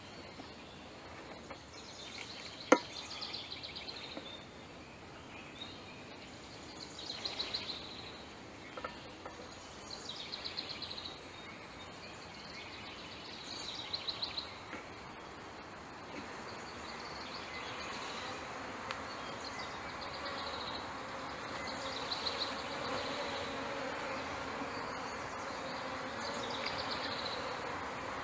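A package of honeybees buzzing, the hum swelling steadily louder through the second half as the package is opened and the feeder can lifted out. There is one sharp click about three seconds in, and short high trills recur every few seconds.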